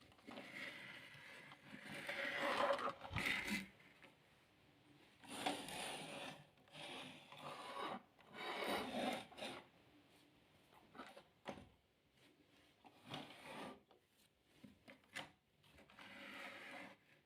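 Handling of toy packaging: irregular bursts of rubbing and scraping lasting about a second each, with a few short clicks in the second half.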